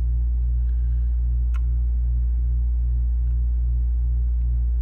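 Steady electrical mains hum with a buzz above it that pulses about three times a second, and one faint click about a second and a half in.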